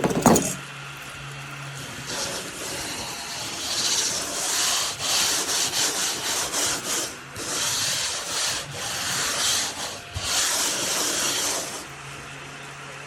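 Irregular rubbing and scraping strokes on a hard surface, coming in uneven bursts. A sharp knock comes right at the start, and a low steady hum is there at the start and again near the end.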